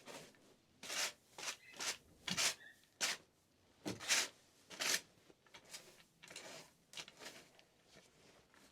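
Manure fork with plastic tines scraping and scooping through straw and manure bedding: a run of short rustling scrapes at uneven intervals, louder over the first half.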